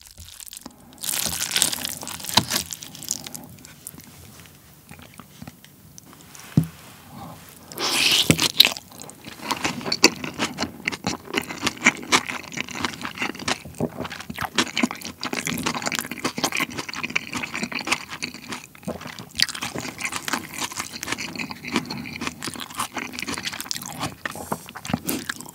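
Close-miked eating of beef tartare bibimbap (yukhoe bibimbap). A spoon scrapes and stirs in a plastic bowl in the first few seconds, a loud mouthful comes about eight seconds in, then steady wet, crunchy chewing of raw beef and crisp vegetables.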